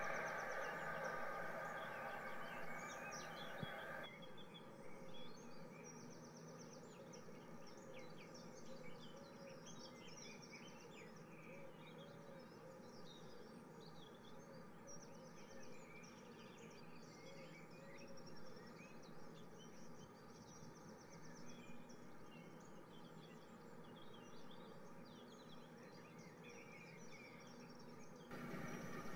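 The whirr of an N gauge model train running away cuts off about four seconds in. After that there is a faint chirping of small birds over a steady low hum.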